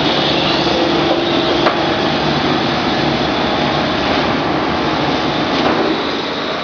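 Vacuum membrane press running with a steady mechanical hum and hiss, its vacuum pump on. A single sharp click comes about a second and a half in, and the noise eases slightly near the end.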